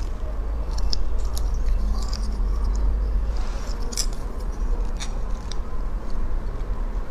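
A metal spoon scraping and clicking inside a cut beef marrow bone as the marrow is scooped out, in scattered short scrapes, over a steady low hum.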